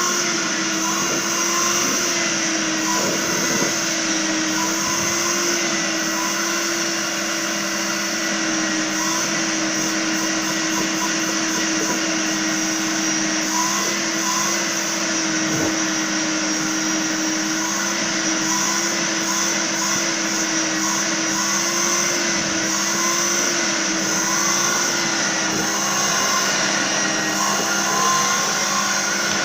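Vacuum cleaner running steadily: a constant motor whine and rush of air, with a hum that wavers slightly in pitch.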